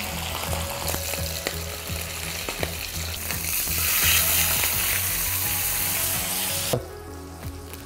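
Mackerel fillet sizzling as it fries in a nonstick pan, with a spatula scraping and clicking against the pan. The sizzle grows louder through the middle and cuts off sharply near the end.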